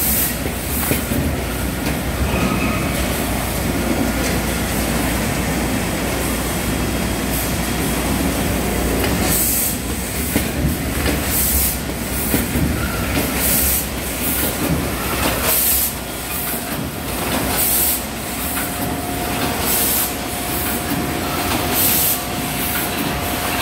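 Automatic chicken packaging machine running with a steady mechanical clatter. Short, sharp hisses of compressed air from its pneumatic cylinders repeat about every one to two seconds through the later part, and a faint steady whine joins past the middle.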